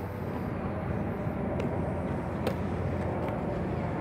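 Steady low rumble of a departing Statue Cruises ferry's engines under outdoor waterfront ambience, with a few faint clicks.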